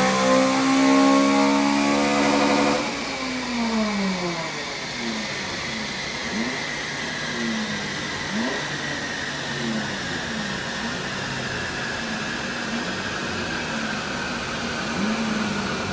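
Honda Civic Type R FN2's 2.0-litre four-cylinder K20 engine running hard on a rolling road, then backing off about three seconds in. A whine then slowly falls in pitch as the rollers and driveline coast down, while the engine note repeatedly dips and rises.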